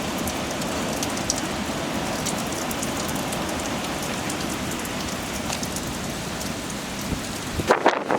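Heavy wind-driven rain, a steady dense rush of downpour. Near the end the sound changes abruptly to a thinner rush with sharp, irregular crackles.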